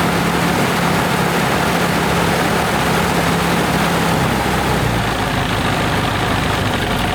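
Freshly rebuilt piston aircraft engine running loud and steady on a ground run, propeller turning; the engine note changes about four seconds in as the revs shift.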